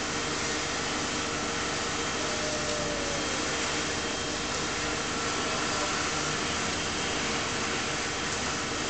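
Steady rushing hiss of a fire hose spraying water onto a burning car, with steam boiling off, over a steady hum.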